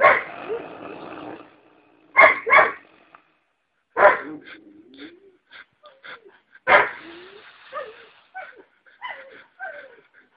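A man snoring loudly in sudden, irregular snorts: a long one at the start, a quick pair about two seconds in, then more every two to three seconds, several trailing off in falling tones.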